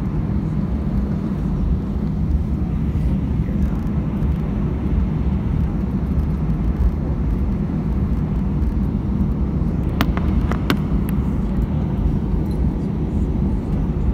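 Jet airliner cabin noise while the plane taxis: a steady low rumble from the engines and the rolling aircraft, with a few light clicks about ten seconds in.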